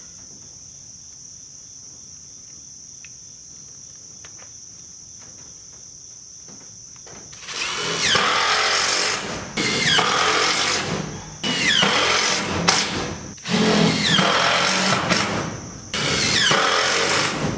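Cordless drill driving screws through metal siding panels, five bursts of about a second and a half each, starting a little before halfway in. Before the first burst there is only a steady high insect drone.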